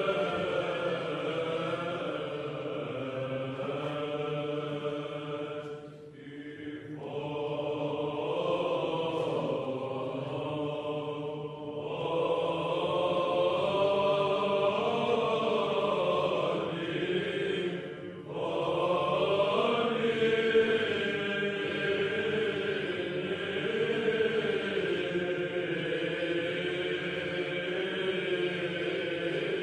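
Byzantine-style Orthodox chant: a slow, melismatic vocal melody sung over a steady held low drone, pausing briefly about six and eighteen seconds in.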